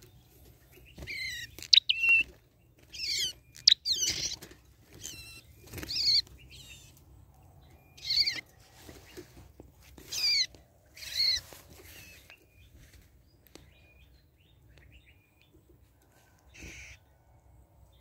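Songbird calls: a series of short, quickly sweeping chirp phrases every second or two, fading to fewer and fainter calls over the last several seconds. Two sharp clicks, about two seconds apart, come early on and are the loudest sounds.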